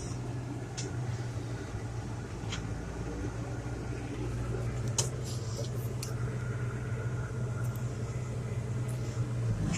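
A John Deere 8770 tractor's engine running steadily, heard from inside the cab, with a few faint clicks.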